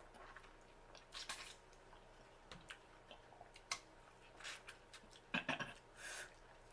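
Close-miked eating sounds from a seafood boil: scattered short wet clicks and smacks, a few at a time.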